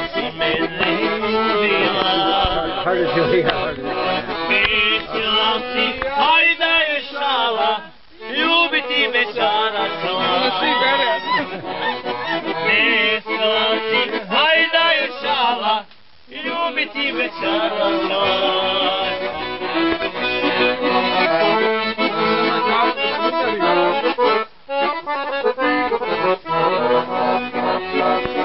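Accordion playing a folk tune, with brief breaks between phrases about every eight seconds.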